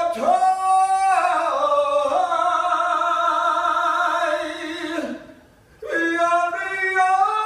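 Male cantor (chazzan) singing solo without accompaniment in long held, sliding notes. One long phrase breaks off about five seconds in, and a second phrase begins a second later.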